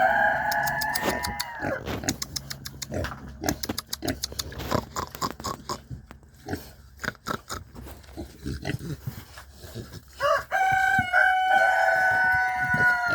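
A rooster crowing twice, each a long held call that drops at the end, one at the start and one about ten seconds in, with scattered clicks and rustles between.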